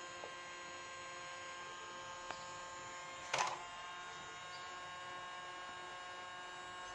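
Small battery motor of a toy vacuum cleaner running with a steady, faint buzzing hum, with a brief rustle about three and a half seconds in.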